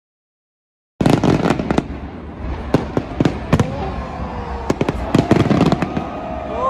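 New Year fireworks going off: a rapid run of sharp bangs and crackling reports that starts suddenly about a second in. A drawn-out cry from the crowd rises and falls near the end.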